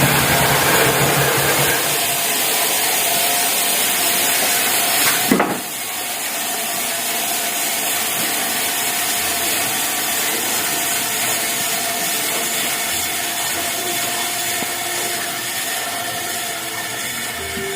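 Portable band sawmill cutting wood: a steady, dense hiss of the blade running through the log, with a sharp crack about five seconds in.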